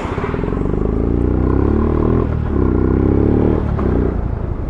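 Yamaha FZ-S V1 motorcycle's 149 cc single-cylinder engine accelerating under way. Its pitch climbs, breaks at a gear change a little over two seconds in, climbs again, then eases off near the end. The rider blames the bike's reluctance to pull on a slack drive chain.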